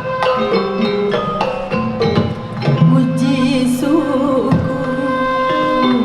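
Sundanese gamelan degung ensemble playing: struck metal-keyed instruments ring in sustained tones over repeated sharp drum and percussion strokes.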